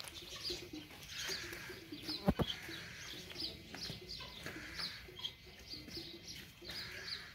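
A hoe chopping and scraping through a wet mud-and-straw mix being turned for plaster. There is one sharp knock about two seconds in. Small birds chirp repeatedly throughout.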